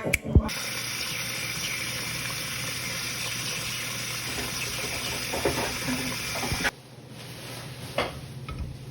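A kitchen tap running steadily into the sink after a short knock, then shut off abruptly after about six seconds.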